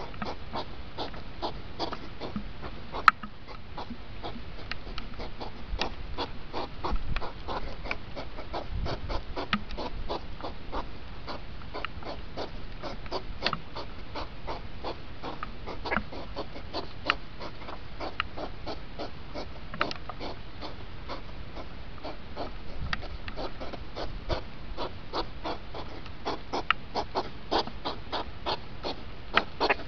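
Rain pattering as a dense run of irregular sharp ticks, under snorting and huffing from hedgehogs in the rut.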